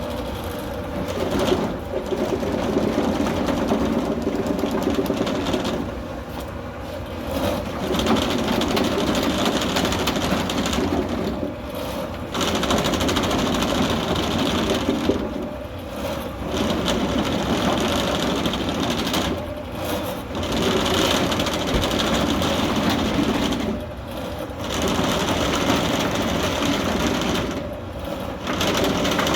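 Rothenberger R-650 electric drain cleaning machine running, spinning its cable with a chain cutter head to clear grease from a sewer line. The running noise drops back briefly about every four seconds.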